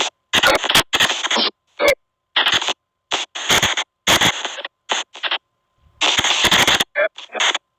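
SP White Noise Box spirit-box app sending out choppy bursts of static and garbled radio-like noise. The bursts cut in and out irregularly, with dead silence between, and one longer burst comes about six seconds in.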